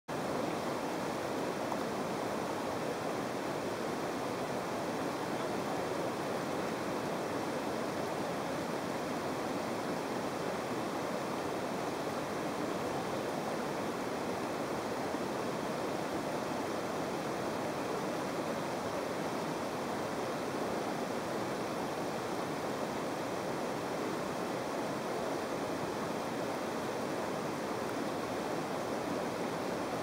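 River whitewater rushing steadily as the rapid churns over a standing wave.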